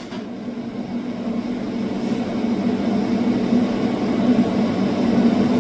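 Makita DCS553Z cordless metal-cutting circular saw running without cutting: a steady hum that grows gradually louder.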